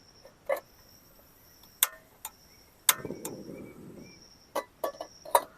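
Metal spoon clinking against a cup or pot while coffee is being stirred: a handful of separate sharp clinks, with a brief softer scraping rustle about three seconds in.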